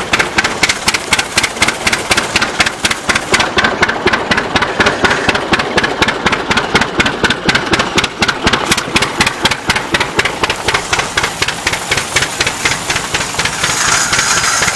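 Rumely OilPull tractor engine running with a fast, even knocking exhaust beat. A hiss joins in near the end.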